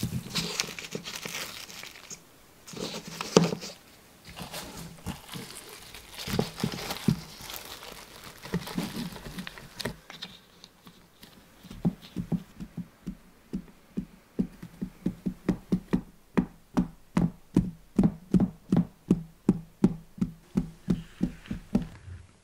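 Plastic cling film crinkling and rustling as tart dough is pressed into a fluted metal tart pan, with a few knocks. From about halfway through, a fork pricks the dough base in a steady run of sharp taps, about three a second, striking through to the metal pan.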